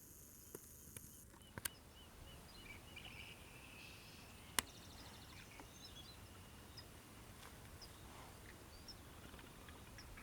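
Faint outdoor ambience with scattered small bird chirps and a few sharp clicks, the loudest about four and a half seconds in. A steady high-pitched tone stops a little over a second in.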